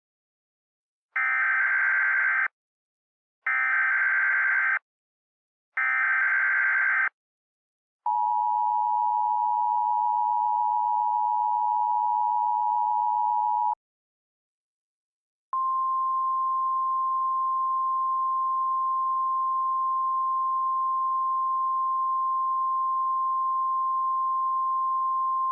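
Emergency Alert System tones: three short, identical bursts of SAME header data, then the two-tone attention signal held for about six seconds. After a short pause comes a single steady alarm tone of the NOAA Weather Radio kind, which runs on. Together they mark the start of an emergency alert broadcast.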